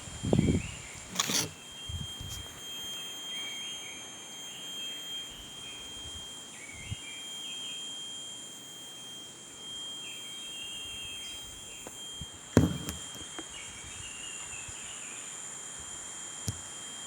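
Birds chirping in short phrases over a continuous high-pitched steady tone, with a few dull thumps near the start and one more about twelve seconds in.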